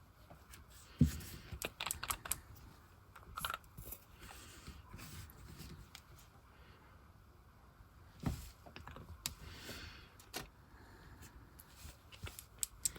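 Scattered light clicks and taps of nail art tools and gel polish pots being handled, with quiet stretches between.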